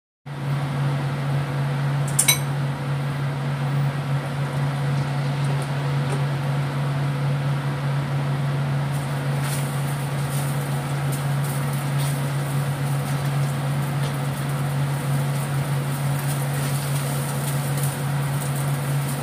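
Beaten egg frying in a wok while it is stirred and scraped with a plastic spatula, over a steady low mechanical hum. A single sharp clink about two seconds in.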